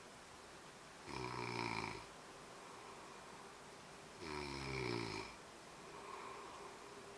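A man snoring in his sleep: two long snores, each about a second, about three seconds apart. He is wearing a Kogolstop anti-snoring device, and the snoring goes on despite it.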